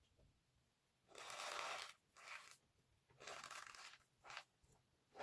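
Microwaved soap coated in cornstarch being crushed: crisp, grainy crunching in four bursts, two longer and two short.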